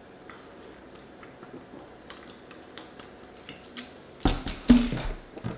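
A man gulping soda from a plastic 2-liter bottle, heard as faint scattered clicks of swallowing. About four seconds in a loud, low burp breaks out from the carbonated soda as the bottle comes down.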